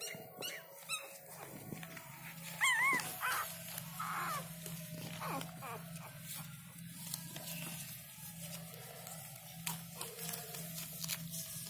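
Newborn puppies squeaking and whimpering in short high cries, the loudest a wavering squeal about three seconds in. Light rustling and clicks sound over a steady low hum.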